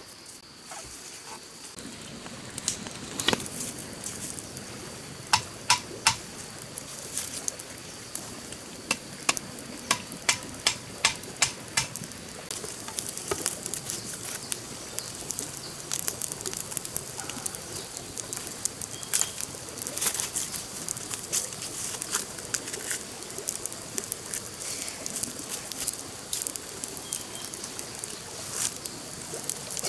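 Wood campfire crackling and popping, with a run of loud, sharp cracks in the first half and denser, smaller crackles after.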